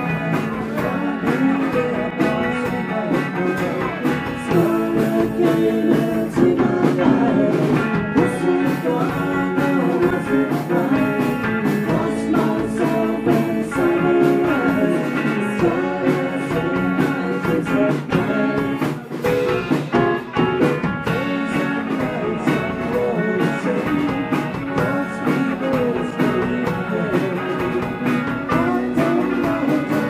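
Live rock band playing a song: twelve-string electric guitar, combo organ, bass guitar and drum kit together.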